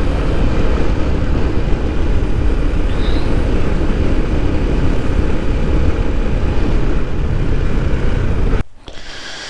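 Heavy wind rush and road noise on the microphone of a motorcycle in motion, an even low rumbling hiss with no clear engine note. It cuts off abruptly about a second before the end.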